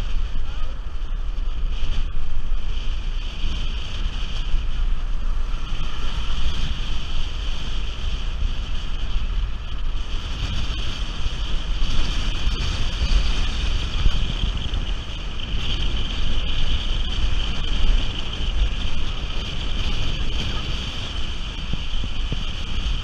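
Steady wind rumble on the microphone of a camera mounted on the outside of a moving car, mixed with the car's road and engine noise.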